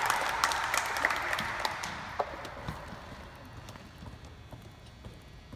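A group of children applauding, the clapping thinning to scattered claps and dying away over the first three seconds or so.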